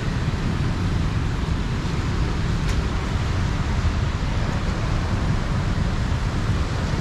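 Steady city road traffic from the wet street below, cars and motorbikes passing as an even wash of noise with a heavy low rumble. A single sharp click comes about two and a half seconds in.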